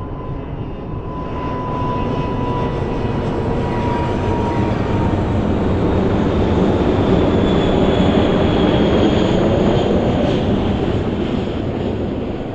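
Airbus A319 airliner landing and rolling out, its CFM56 jet engines heard as a thin whine that falls slightly in pitch, under a broad roar. The roar swells to its loudest about two-thirds of the way through, then fades as the jet rolls away down the runway.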